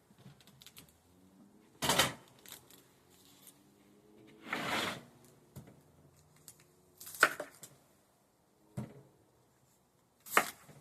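A series of sharp clacks and knocks, about five spread a couple of seconds apart, one of them near the middle a longer scraping rush.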